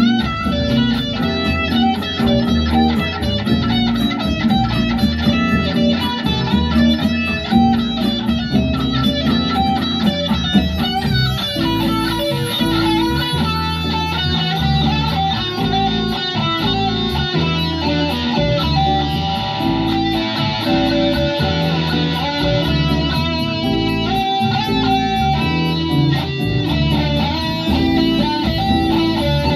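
Electric guitar music: a sunburst Les Paul-style electric guitar played without a break, a steady run of notes and chords.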